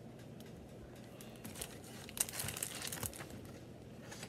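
Paper pages of a graphic novel rustling as the open book is handled close to the microphone, with a few brief crinkling rustles about two to three seconds in.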